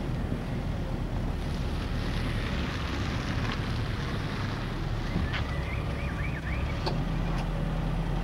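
Car engine running as an estate car drives up and stops, with wind noise on the microphone; a steady low hum sets in near the end, and two sharp clicks follow.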